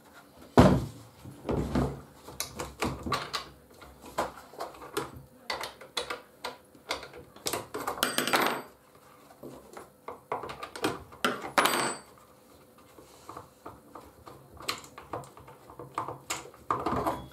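Clicks, knocks and scrapes of metal and hard plastic as the bar nuts are undone with a spanner and the side cover is worked off a Timberwolf 18-inch chainsaw, with a couple of ringing metallic clinks midway.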